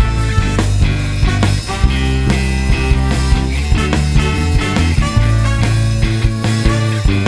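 Background rock music with a steady drum beat and bass.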